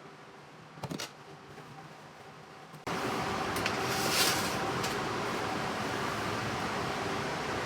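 Two clicks, then about three seconds in an appliance fan switches on and runs with a steady whirring noise and a faint hum.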